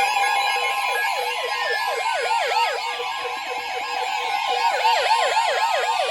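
Weather radio alert alarms sounding: a rapid warbling siren of about three sweeps a second over a steady tone near 1 kHz. This is the alarm that marks a warning coming in over NOAA Weather Radio.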